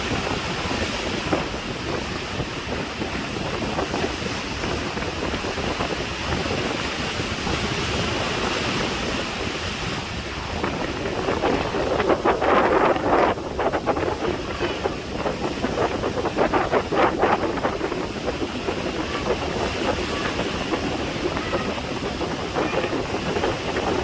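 Heavy sea waves surging and breaking, with wind on the microphone; a louder, gusty stretch about halfway through.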